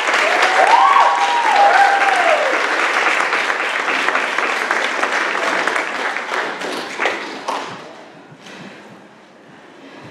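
Audience applauding, with a few voices whooping in cheers during the first couple of seconds; the clapping dies away about eight seconds in.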